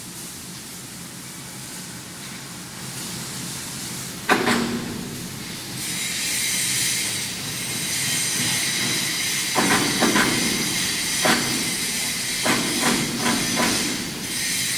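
A heavy steel box beam hanging from crane slings knocks and clanks against the welding column's carriage as it is guided into place. One loud knock comes about four seconds in and a run of lighter knocks follows later. Under them is a steady hissing machine noise that comes up after about six seconds.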